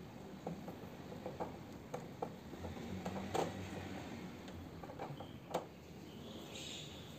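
Scattered light clicks and taps, about a dozen over several seconds, as parts of a washing machine are handled during disassembly, with a brief soft hiss near the end.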